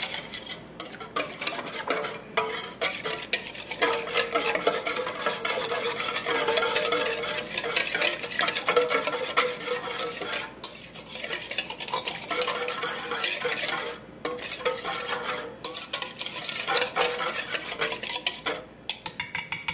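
Wire whisk beating a thin sauce in a stainless steel mixing bowl: rapid metal scraping and clinking against the bowl with a steady ringing tone, broken by a few short pauses and slowing to separate taps near the end.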